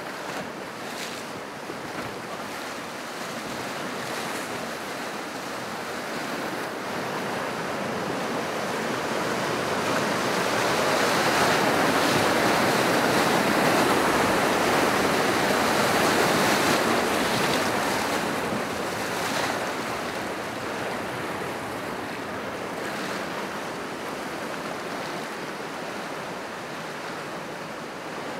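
River whitewater rapids rushing over rocks, a steady noise of churning water that swells to its loudest about halfway through and then eases off. A few brief sharp splashes cut through it.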